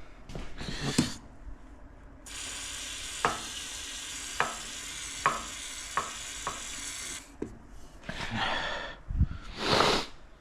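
Aerosol can of penetrating oil sprayed through its straw: one steady hiss lasting about five seconds, with several sharp clicks during it.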